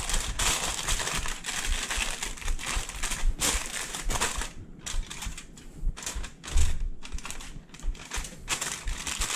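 Aluminum foil crinkling and crackling as hands fold and crimp it shut into a packet, a dense run of small crackles that thins out now and then, with a soft thump about two-thirds of the way through.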